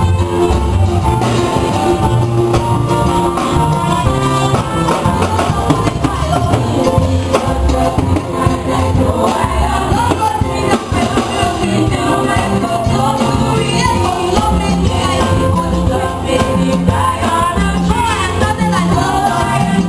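Loud music with a strong, steady bass line and singing voices.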